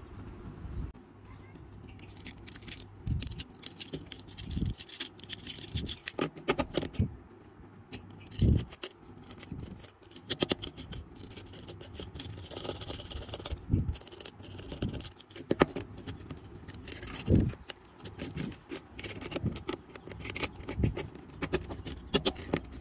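Repeated scraping and clicking of hand tools against small hard parts, with short rattles, as an old burned mobile phone is worked on by hand.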